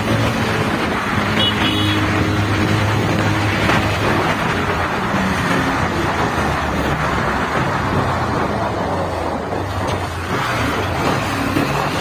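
Bajaj Pulsar 220F's single-cylinder engine running as the bike is ridden along a street, heard from the rider's seat over road and wind noise. The engine note holds fairly steady for the first few seconds, then wavers as the throttle is worked.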